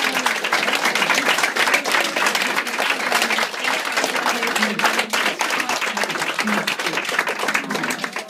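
A room full of people applauding, fast dense clapping with voices calling out over it; the clapping stops abruptly at the very end.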